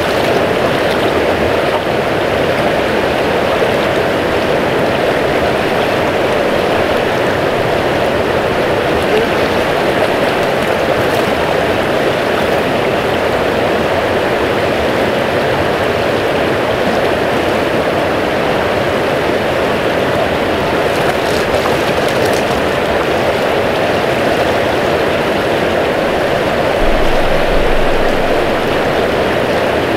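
Small river running high and fast with spring runoff, a steady rush of water close by. Two short low thumps near the end.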